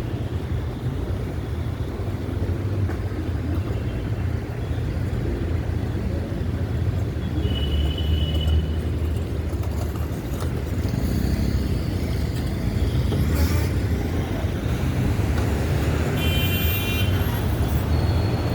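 Street traffic: a steady low rumble of passing vehicles, with two brief high-pitched squeals, one about eight seconds in and one near the end.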